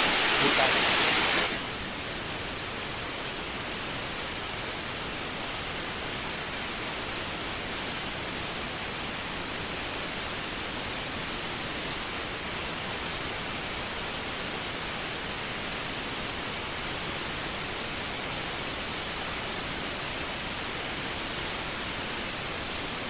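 Tenya CUT50 plasma cutter's torch cutting through a 10 mm steel plate: a steady hiss of the plasma arc and air jet, louder for about the first second and a half, then even for the rest of the cut.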